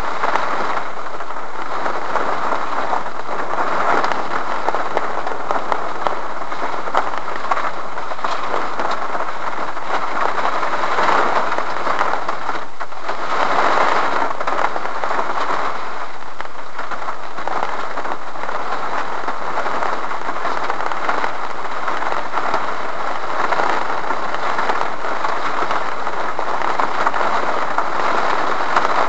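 Rain falling on a parked car's roof and windshield, heard from inside the cabin: a steady hiss dotted with the small ticks of drops, swelling a few times.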